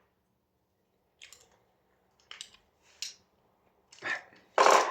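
Short rustles and clacks of a door closer and its packaging being handled: a few faint ones, then louder ones near the end.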